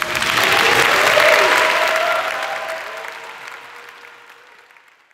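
Concert audience applauding and cheering. The applause swells quickly, is loudest about a second in, then dies away to nothing by the end.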